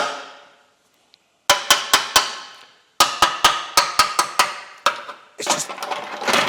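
Repeated sharp metal taps on a removed Toyota Celica GT4 subframe, each ringing briefly: a few about a second and a half in, a quicker run of taps from about three seconds, then denser rattling taps near the end. The sound is taken to show the subframe is rotting from the inside and paper thin.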